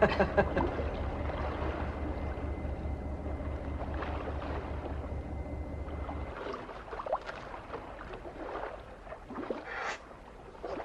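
A boat engine running with a steady low hum, stopping suddenly about six seconds in. After that there is a faint wash of sea and wind with a few light knocks.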